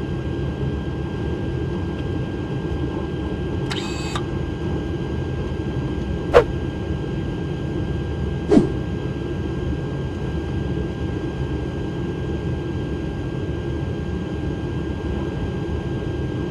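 Steady rumble of airflow and engines on a Boeing 777-300ER flight deck on final approach, gear and flaps down, with a faint steady tone over it. Two sharp clicks stand out, about six and eight and a half seconds in.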